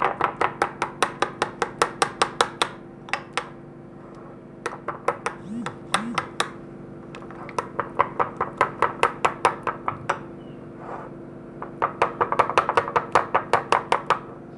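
Metal spoon beating a yogurt, egg yolk and flour mixture in a glass bowl, clinking against the glass about five or six times a second in runs of a few seconds with short pauses. The mixture is being beaten well so that the yogurt does not form lumps.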